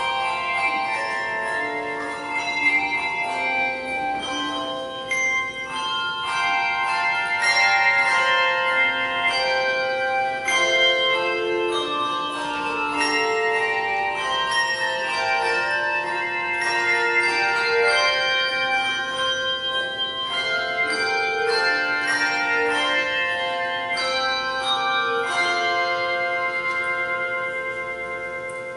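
Handbell choir ringing a piece, many brass handbells struck together in chords and melody, each note ringing on and overlapping the next. Near the end the ringing begins to fade away.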